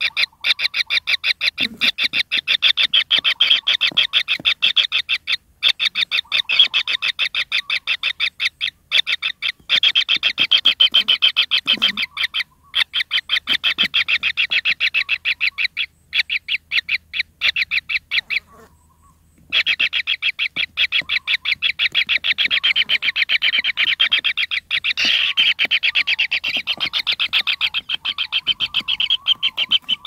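Kingfisher nestlings giving a fast, continuous rasping begging call, a rapid train of pulses, with a short break about two-thirds of the way through. The hungry, pin-feathered chicks are calling for food.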